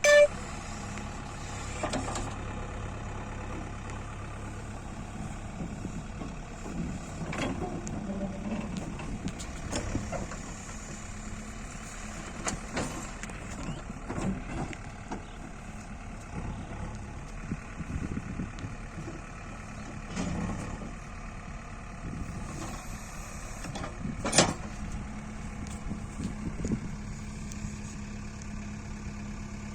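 JCB 3DX backhoe loader's diesel engine running steadily at work, with scattered knocks and clunks. A sharp bang comes at the very start and another louder one about three-quarters of the way through.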